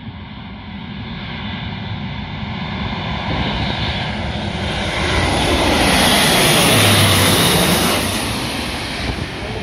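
Airbus A400M's four turboprop engines and propellers droning as it approaches low, growing steadily louder to a peak as it passes overhead about seven seconds in, then easing off.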